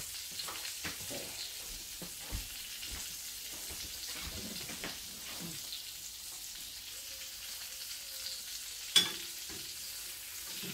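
Oil sizzling steadily in frying pans as asparagus sautés and a piece of trout fries skin-side. There are a few light knocks in the first few seconds and a sharp click about nine seconds in.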